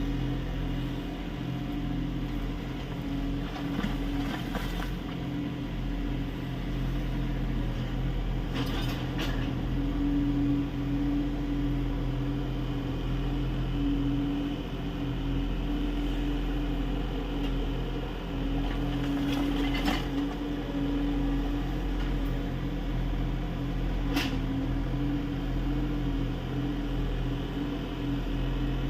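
Kubota U30 mini excavator's diesel engine running steadily as it digs, its note swelling and easing with the load. A few short knocks from the machine's digging gear are spread through.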